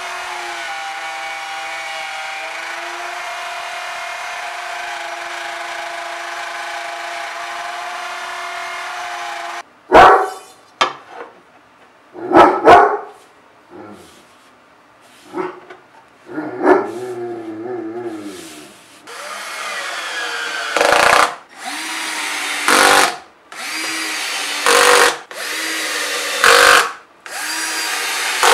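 Handheld router running steadily as it cuts T-track slots into a tabletop, stopping about a third of the way through. A few short sharp knocks follow. Near the end, a cordless drill drives screws in about five short runs of a second or so each.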